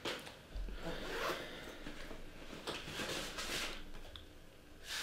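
A bag being opened and rummaged through, with several rustling, scraping strokes about a second apart, as papers are pulled out of it.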